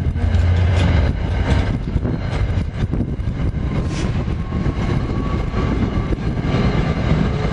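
Commuter train of passenger coaches passing at speed: a steady low rumble of steel wheels on rail, with repeated clicks as the wheels cross rail joints.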